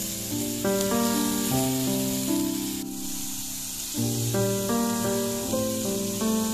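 Background music of slow chords that change every half second to a second, over a steady sizzle of chicken fillets frying on a hot grill pan.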